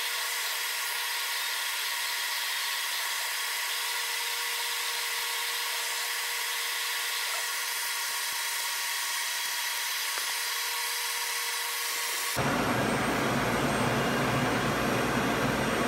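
Steady machine hiss with a faint hum from a CNC machine running with a drag knife. About twelve seconds in it cuts abruptly to a louder, rougher rushing noise.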